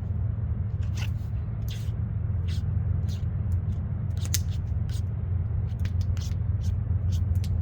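Scattered sharp clicks and light scrapes, a few each second and irregularly spaced, over a steady low rumble.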